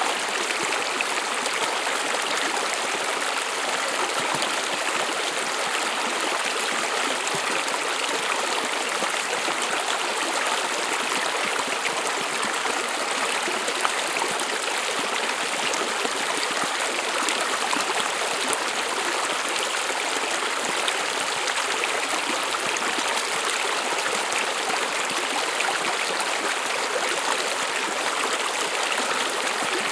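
Brook running steadily over stones, a continuous rushing and trickling of water.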